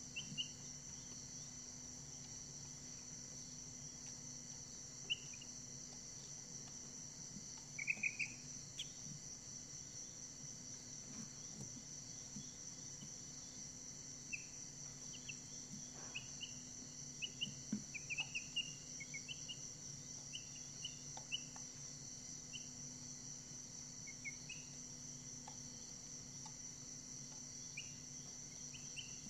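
Brahma chicks peeping: short high chirps scattered through, loudest about eight seconds in and busiest past the middle, over a steady high-pitched drone and a faint low hum.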